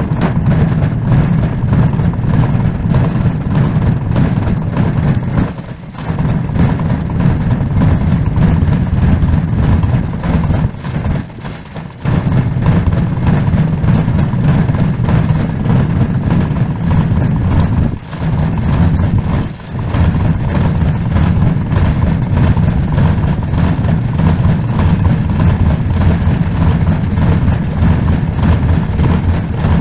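An engine running steadily and loudly, starting suddenly, with a few brief dips in level.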